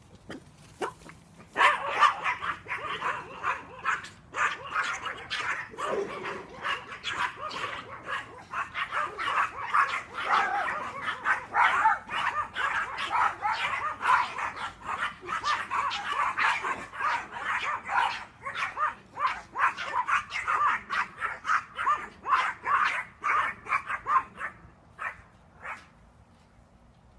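Several dogs barking in a rapid, nonstop volley of short barks and yips, starting about two seconds in and dying away near the end.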